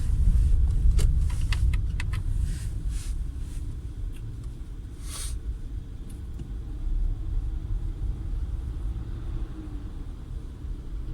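Peugeot 408 on the move, with a steady low rumble. Over it come a run of sharp knocks in the first few seconds and one louder knock about five seconds in: the knocking from the front end that the owner is trying to trace.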